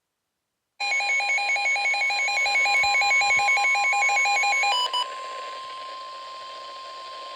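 Weather alert radios going off for a snow squall warning: rapid pulsing electronic alarm beeps at several pitches over the steady single-pitch attention tone of the NOAA Weather Radio broadcast. About four seconds in, the beeping stops and the steady tone carries on, quieter, over radio hiss.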